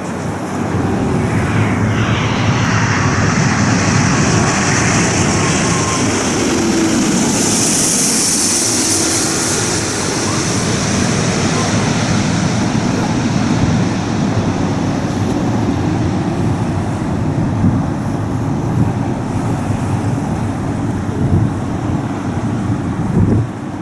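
Jet airliner passing close by, its engines swelling to a loud peak about eight seconds in, with a falling whine as it goes past.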